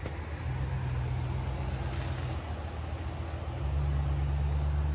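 A steady low rumble that grows louder about half a second in and again near the end, with a faint even hiss above it.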